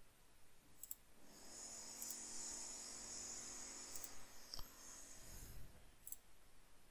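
A few sharp computer-mouse clicks spaced a second or two apart. From about a second in until near the end, a steady machine-like whine with a high hiss plays underneath: noise from construction work nearby.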